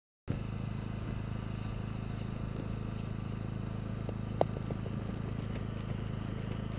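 A steady low engine hum cuts in just after the start, with light scraping and a sharp click about four seconds in from a shovel digging in snow.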